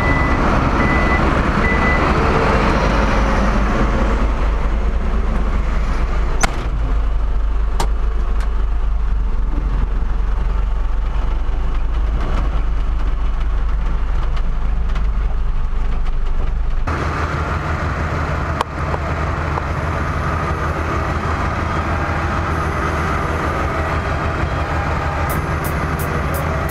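Engine of an airport ground-support vehicle such as a baggage tug, running steadily and heard from close by, with a few short high beeps near the start. About two-thirds of the way through, the running sound changes abruptly to a different, slightly quieter hum.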